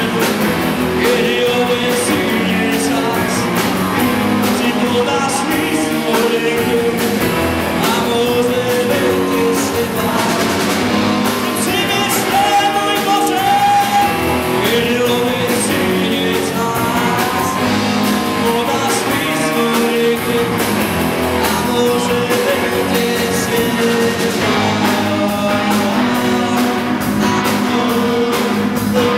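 Rock song with a singer over a full band, playing loud and steady throughout.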